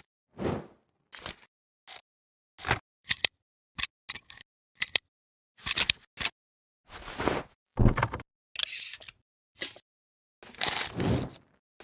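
Transition sound effects, camera shutter clicks and short noise swooshes, one after another with dead silence between them; the longest, about a second, comes near the end.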